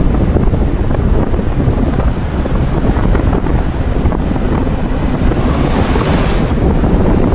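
Wind buffeting the microphone over the low rumble of a vehicle driving along a road. About six seconds in a brief louder rush comes as a truck passes close alongside.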